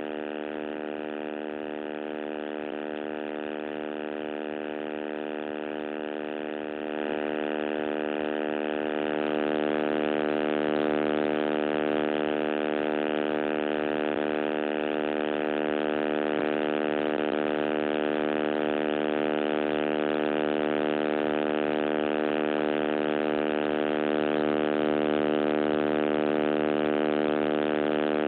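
Loud, steady electrical buzz from a damaged recording microphone: a drone of many even overtones. It grows louder about seven seconds in.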